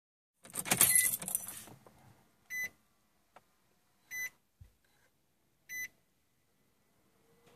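A bunch of keys jangling, then three short high electronic beeps about a second and a half apart.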